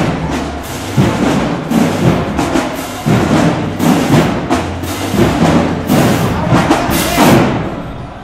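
Marching band playing: sustained brass with heavy drum hits about once a second.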